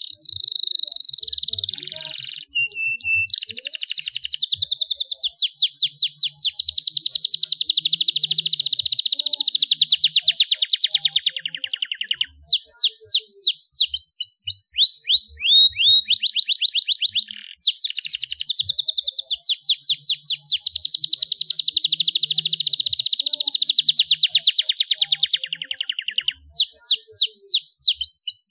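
Canary singing a long, loud song of fast rolling trills and rapid runs of repeated high notes, with bursts of sharp sweeping notes in the middle and near the end and a short break a little past halfway.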